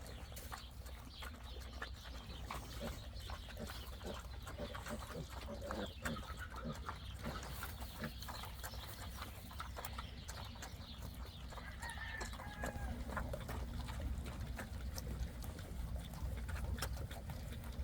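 Pigs and piglets eating thrown apples: fairly quiet scattered crunching and chewing clicks, with a brief faint animal call about twelve seconds in.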